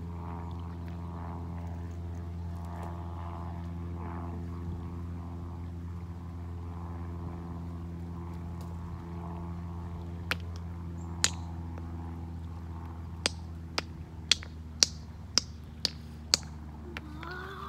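Boat motor running at a steady low speed. A series of sharp clicks comes over it from about ten seconds in, about two a second near the end.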